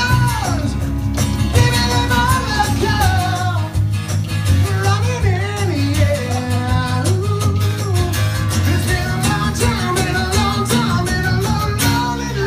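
Live band playing a song: a man sings lead over strummed acoustic guitars and an electric guitar, with a steady bass underneath.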